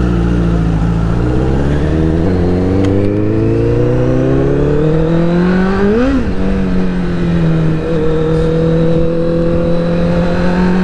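Honda CBR1000RR's inline-four engine pulling under throttle, its pitch rising slowly for several seconds. About six seconds in it peaks and drops at an upshift, then holds a steady pitch at cruise.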